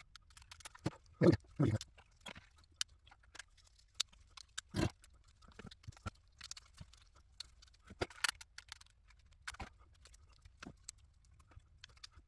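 Irregular clicks, taps and a few short knocks from hand work on an old tube-radio chassis, with tools and parts being handled.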